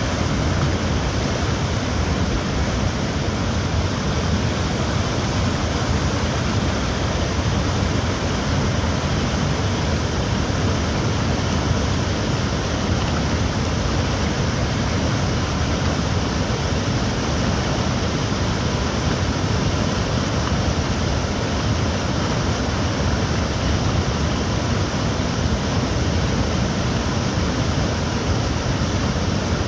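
Floodwater rushing steadily over a weir and down its concrete apron: a continuous, even whitewater noise that does not change from start to end.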